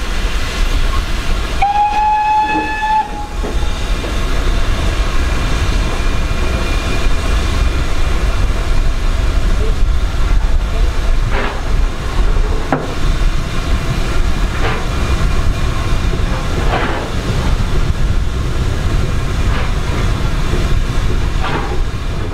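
Steam locomotive whistle blown once, briefly, about two seconds in. It sits over the steady heavy rumble of a working train, with a few short sharp clanks in the second half.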